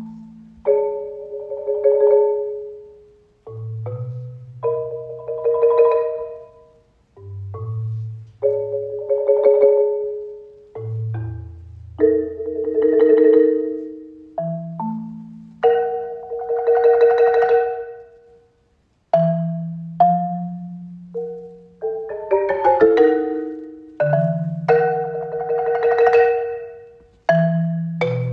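Concert marimba played with four mallets: rolled chords in phrases of a few seconds each, swelling and fading over low bass notes, with a brief break about two-thirds of the way through.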